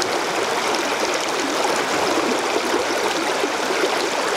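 Shallow river water running fast through a broken riffle, a steady rush with no pauses.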